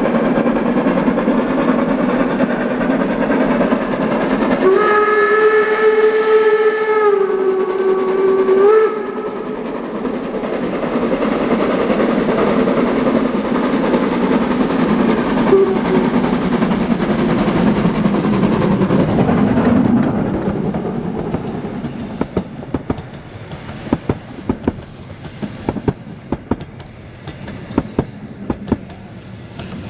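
Narrow-gauge steam train running, heard from a carriage. The locomotive's steam whistle sounds once, for about four seconds, starting about five seconds in, over the steady running noise. In the second half the running noise eases and separate rail-joint clicks stand out.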